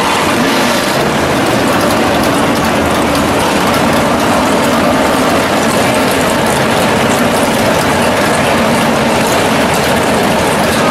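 Drag-race car engines idling loudly and steadily, a rapid chattering pulse running through the sound.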